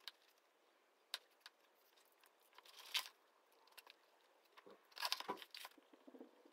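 Quiet desk sounds of studying with a highlighter and a textbook: a few sharp clicks, a rustle of paper that builds to a louder scrape about three seconds in, and a cluster of rustling with a soft knock on the table about five seconds in.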